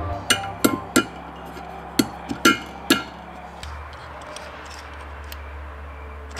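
Light metallic clicks and clinks, about seven of them at an uneven pace in the first three seconds, as small carburetor parts and a screwdriver are handled. A quiet background music bed runs underneath.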